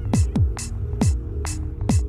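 Electronic background music with a steady beat: deep kick drums that drop in pitch, crisp high ticks and held synth notes.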